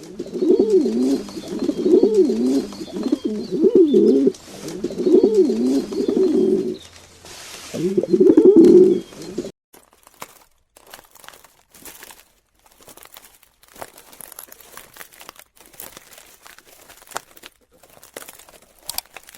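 A bird cooing: low calls that rise and fall in pitch, repeated in groups for about nine seconds, then stopping suddenly. After that come only faint scattered clicks and rustling.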